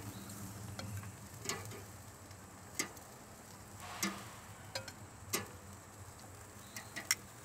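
Metal kitchen tongs clicking against a grill grate and a ceramic plate as grilled shrimp are lifted off and set down: about seven short, sharp clicks at irregular intervals, two of them close together near the end.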